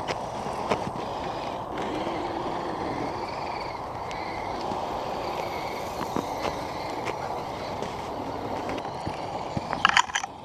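Radio-controlled crawler truck's electric motor and gears whirring steadily as it works through snow, with a quick run of sharp clicks near the end.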